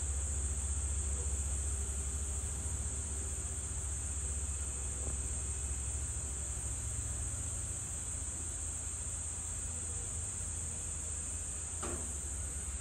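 Steady high-pitched insect chorus over a low, steady rumble.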